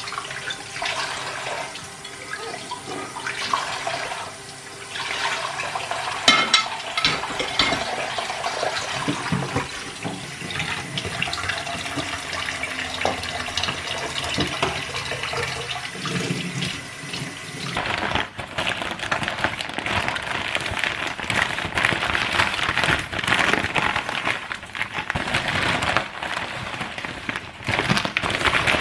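Water running from a kitchen tap into a sink, with light clatter mixed in; the flow becomes heavier and steadier about two-thirds of the way through.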